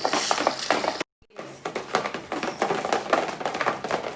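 Spoons stirring slime in bowls: a busy clatter of clicks and squishy taps, with a short hiss at the start and the audio cutting out completely for a moment about a second in.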